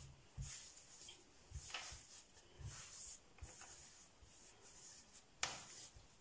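Hands folding and patting soft, risen bread dough on a floured countertop: faint dull pats about once a second with light rubbing, and a single sharp click near the end.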